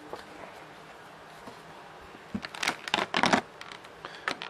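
Clear plastic packaging crackling as a boxed vinyl figurine in its plastic tray is handled: a burst of crinkling about halfway through and a short one near the end.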